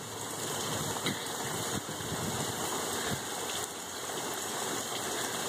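Torrential rain pouring down onto a flash-flooded street, with floodwater running. It makes a steady, even hiss.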